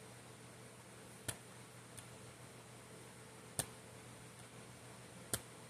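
Quiet room tone with a faint steady hum, broken by four short sharp clicks spread over a few seconds.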